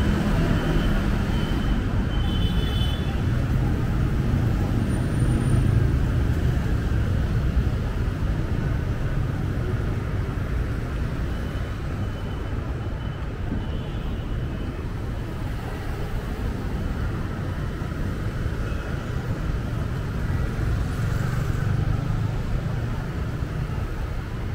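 Steady city street traffic: cars and motorbikes running past, a continuous low rumble of engines and tyres.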